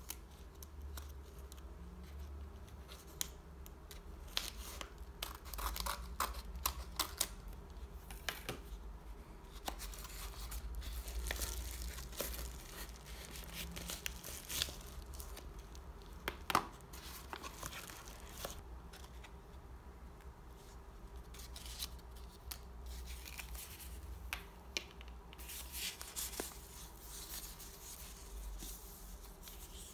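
Scissors snipping through a padded paper mailer, then the envelope being pulled open and its paper wrapping rustled and crinkled by hand, with many sharp clicks and taps.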